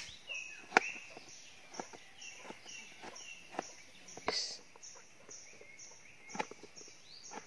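A knife slicing small kandis fruits on a cutting board: irregular sharp knocks of the blade on the board, the loudest about a second in. Behind them a high chirp repeats steadily, about two to three times a second, and birds chirp.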